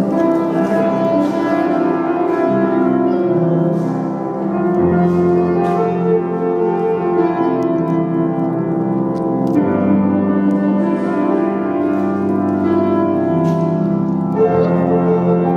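Instrumental classical-style music led by piano, with held chords that change about every five seconds.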